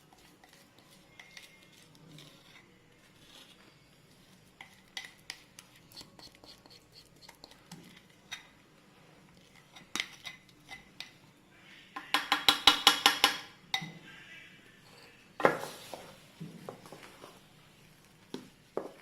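A mixing utensil clinking and scraping against a bowl as cake batter is mixed: scattered light taps, then a quick run of rapid, even strokes, about eight a second, for under two seconds about twelve seconds in, the loudest part, and another clatter a few seconds later.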